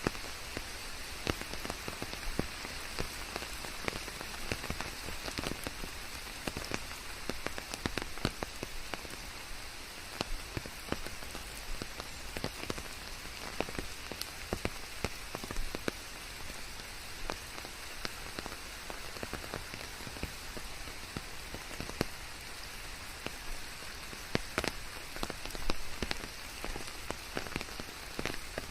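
Steady rain with many separate drops ticking throughout, blended with an even white-noise hiss.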